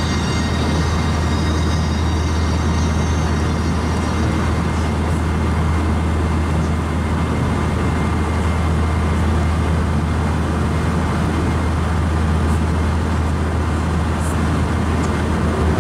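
Steady cabin noise inside an Airbus A319-132 in flight: an even rush of airflow and engine noise over a constant low hum.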